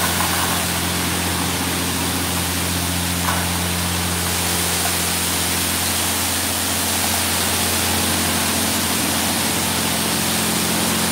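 PDQ LaserWash 4000 touchless car wash blasting high-pressure water jets from its arm onto a vehicle: a steady hiss of spray over a steady low hum.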